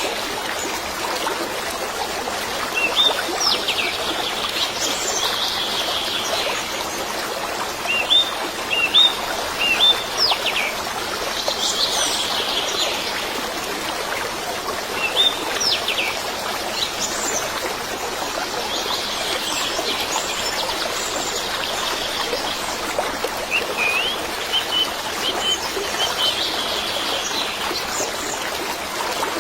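Birds chirping and calling in short, scattered phrases over a steady trickle of flowing water.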